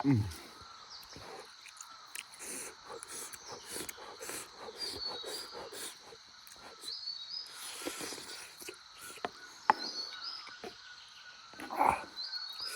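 Outdoor rural ambience: a small bird repeats a short, high, stepped call about every two to three seconds over scattered clicks and knocks, with a thud at the start and a louder knock near the end.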